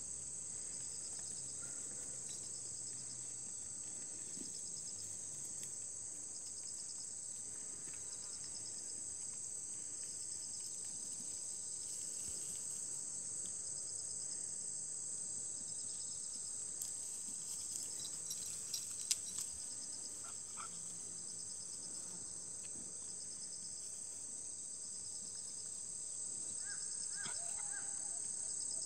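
Steady high-pitched chorus of insects shrilling, with a finely pulsing trill beneath it. A few faint clicks come about two-thirds of the way in, and faint short chirps near the end.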